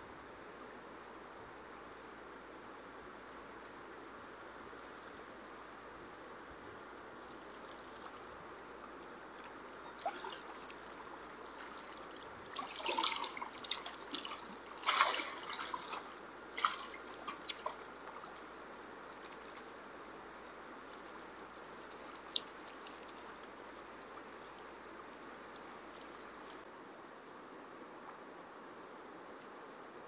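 A hooked fish splashing at the water surface on a long fishing pole, a run of sharp splashes lasting about eight seconds, loudest in the middle. A steady hiss of flowing water runs underneath, with a single sharp click later on.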